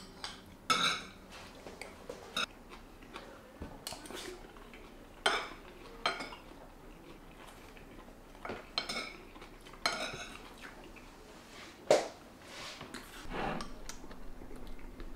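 Metal spoon clinking and scraping against a ceramic plate while eating rice: scattered, irregular clinks a second or two apart, with one louder clink late on.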